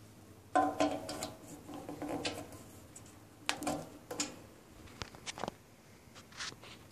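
Light knocks and rattles on an aluminum diamond-plate cart, with a brief metallic ring: one cluster about half a second in, another around three and a half seconds, then a few sharp clicks around five seconds.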